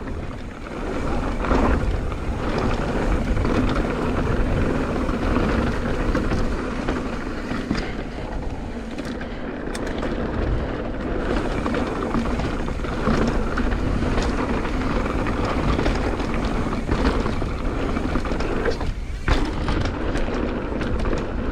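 Bike riding down a dirt singletrack: steady rolling noise of tyres on dirt, the bike rattling, and wind on the microphone, with a few sharp knocks from roots or rocks.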